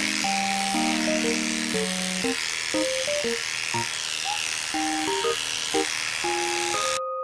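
Electric pet clipper buzzing steadily as it shaves a puppy's body coat. It stops suddenly near the end. A light, cheerful background tune plays throughout.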